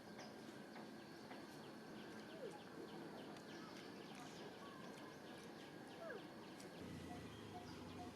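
Faint outdoor background with many small scattered ticks and a few brief, faint squeaky calls that slide in pitch, about 2.5 and 6 seconds in.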